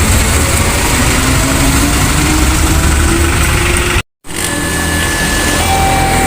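Heavy road traffic with a vehicle engine running and slowly rising in pitch as it speeds up. The sound cuts out abruptly about four seconds in. When it returns, a faint electronic alarm alternates steadily between two pitches over the engine noise.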